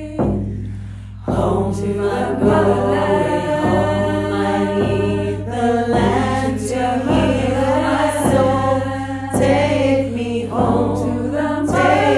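A song plays: several voices singing together over a steady low drone, the phrases starting afresh about every second or so.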